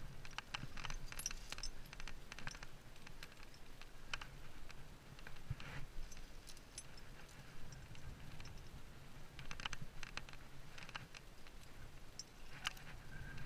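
Light, scattered clicks and clinks of a climber's rack of karabiners and gear, mixed with brief scuffs of hands and rock shoes on the rock as the climber moves up.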